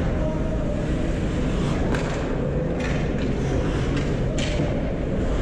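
Ice hockey play in an arena: a steady low rumble of rink noise with three sharp knocks, about two, three and four and a half seconds in, the kind made by sticks and puck striking.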